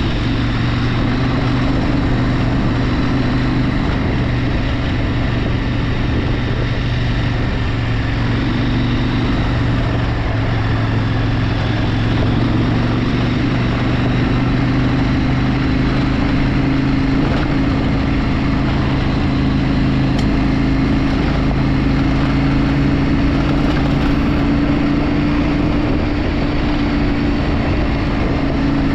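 A vehicle engine running steadily under way, its pitch drifting a little over half a minute, with a constant rushing noise behind it.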